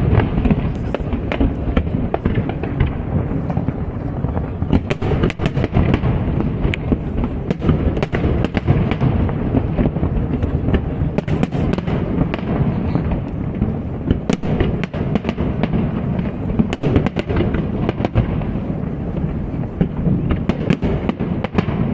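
Aerial fireworks display going off continuously, a dense rumble of booming shell bursts with many sharp cracks and crackles layered over it, without a break.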